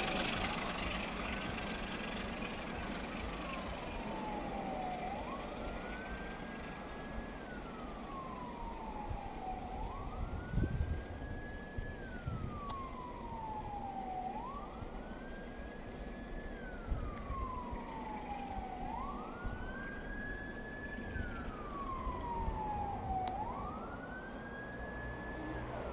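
A siren wailing in slow cycles, each a quick rise in pitch, a short hold and a slow fall, six times over, above a low rumble.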